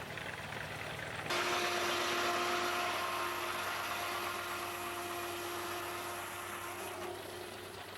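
Steam-driven sawmill's circular saw biting into a log about a second in and cutting steadily with an even whine, easing off near the end; the steam engine's steady running underneath.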